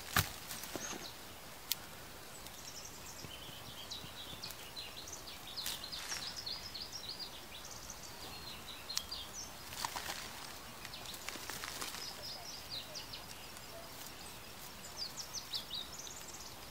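Small birds chirping in short runs of high notes over quiet outdoor ambience. A knock right at the start as soil is knocked off the dug-up root clump, then faint rustling and a few light clicks as the soil is picked from the roots by hand.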